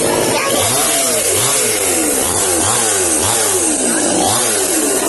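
Chainsaw engine running and being revved over and over, its pitch rising and falling about seven times.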